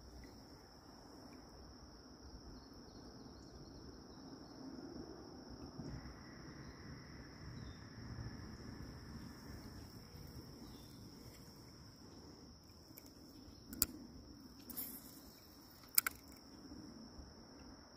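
Steady high-pitched chorus of crickets, with two sharp clicks near the end.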